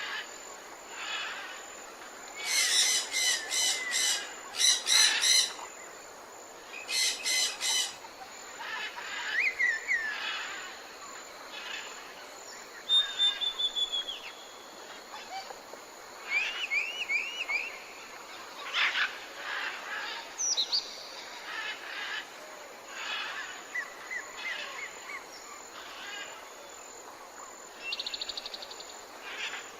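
Several forest birds calling and singing in turn: loud bursts of rapidly repeated notes in the first eight seconds, then short whistles, a falling run of notes and scattered chirps, over a steady faint hiss.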